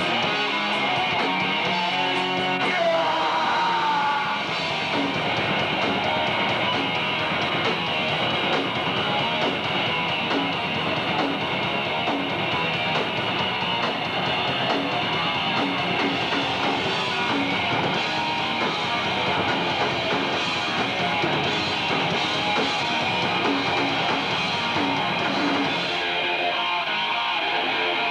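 Thrash metal band playing live: loud distorted electric guitars over a drum kit.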